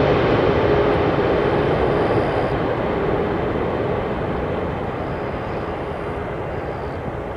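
Jet engine noise from a landing Boeing 747-8F, four GEnx turbofans: a steady rushing sound with a faint tone that dies away after about three seconds, the whole slowly fading as the aircraft moves off.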